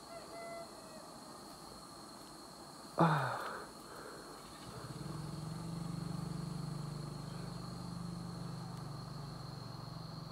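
A quick swish of leaves about three seconds in as a bare hand snatches a butterfly off a vine, over a steady high insect drone. From about five seconds a low steady buzz runs on.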